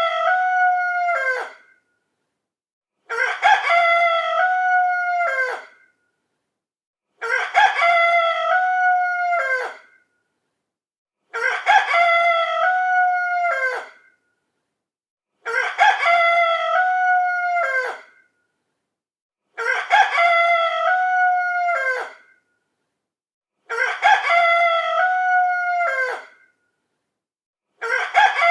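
A rooster crowing, the same cock-a-doodle-doo repeated about every four seconds with dead silence between each crow: one recording looped. About seven full crows, with another starting near the end.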